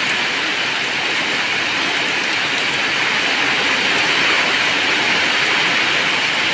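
Heavy rain pouring down: a dense, steady hiss with no let-up.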